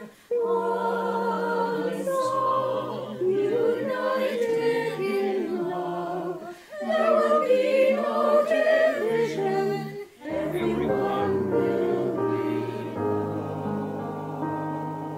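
A virtual choir of mixed men's and women's voices singing together in sung phrases with short breaths between them; in the last few seconds a held chord slowly fades.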